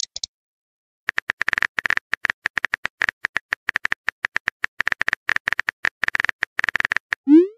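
Simulated phone keyboard tap clicks from a texting app as a message is typed letter by letter, several quick clicks a second, starting about a second in. Near the end a short rising pop sounds as the message is sent.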